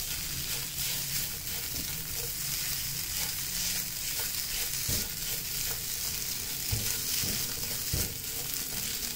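Shredded chicken sizzling as it is sautéed in a nonstick frying pan, stirred and scraped around with a silicone spatula. A few short knocks of the spatula against the pan come through the steady sizzle.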